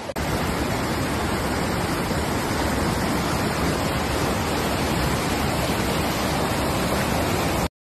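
River rapids rushing over rocks: a loud, steady rush of white water that cuts off suddenly near the end.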